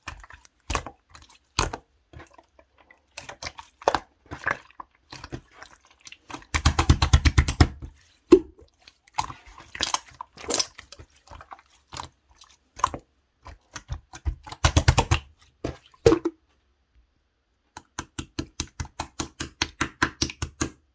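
Clear orange slime being squished and poked by hand, making sticky clicking and popping sounds. The clicks come in irregular groups, with two fast runs of rapid clicks, and a steady rhythm of about five clicks a second near the end.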